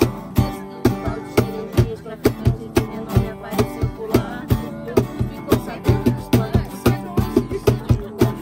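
Acoustic guitar strummed live with a cajón keeping a steady beat, its sharp hand slaps repeating several times a second under the chords.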